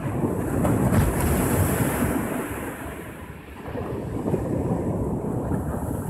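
Small sea waves breaking and washing up a sandy shore: a continuous wash that swells, eases a little past three seconds in, then builds again. Wind rumbles on the microphone underneath.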